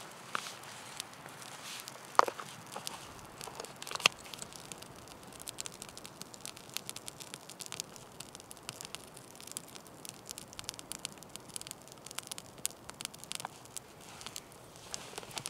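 Small kindling fire of split sticks crackling with many quick, sharp pops. Two louder cracks come about two and four seconds in.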